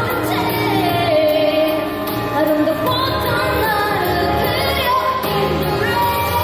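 A woman singing a Korean pop ballad live into a handheld microphone over backing music, her melody gliding between held notes.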